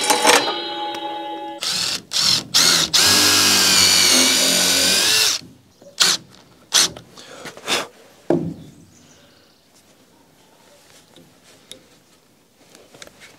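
A table saw's blade spinning down after a cut, then a Makita cordless drill-driver driving a screw into a wooden block: a few short bursts, then one steady run of about two and a half seconds that stops suddenly. A few sharp knocks of wood follow.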